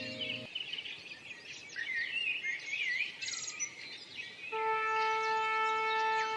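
Songbirds singing and chirping in woodland. A held music chord stops about half a second in, and a new steady chord of several sustained notes comes in after about four and a half seconds, under the birdsong.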